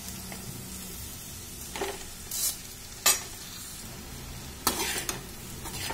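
Slotted steel spatula stirring poha (flattened rice) into vegetables in a steel kadhai, metal scraping and clinking on the pan a few times, the sharpest clink about three seconds in. A low frying sizzle runs underneath.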